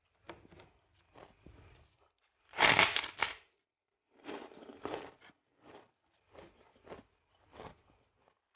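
A person biting into a large, crisp white kerupuk cracker: a loud cluster of sharp cracks about two and a half seconds in, a second bite about four seconds in, and softer crunching chews in between and afterwards.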